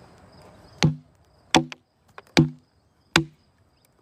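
Hatchet chopping into wood four times, about one stroke every three-quarters of a second, each a sharp knock with a short woody ring. The strokes chip out the blocks left between the chainsaw's waffle-pattern cuts.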